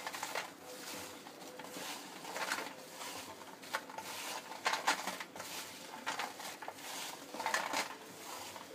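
Crisp fried potato fries tossed by hand in a stainless steel plate, rustling and clattering against the metal in irregular bursts. The dry, crackly rattle is the sign that the fries are crispy.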